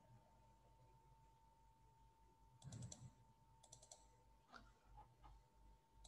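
Near silence broken by faint computer clicks: two quick runs of clicks about two and a half and three and a half seconds in, then a few softer taps, over a faint steady hum.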